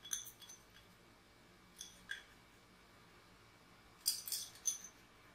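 A metal spoon clinking and tapping against a glass mixing bowl while curd is spooned into flour. A few light clinks at the start and two near the middle, then a louder cluster of clinks about four seconds in.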